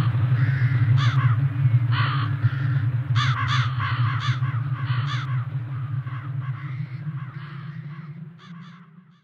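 Crows cawing again and again over a low, steady drone, the whole fading out near the end.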